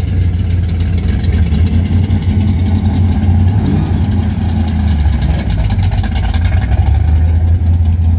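A car engine running loudly and steadily with a low rumble as the car creeps along at walking pace.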